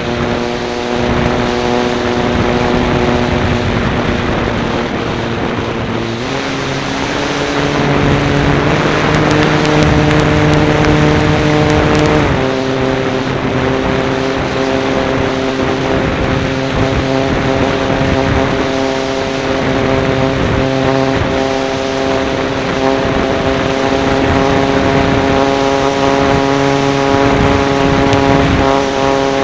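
Radio-controlled model Cessna's engine heard from a camera on board, running steadily with a rush of air over the microphone. The engine pitch steps up about six seconds in, drops back slightly about twelve seconds in, and then holds.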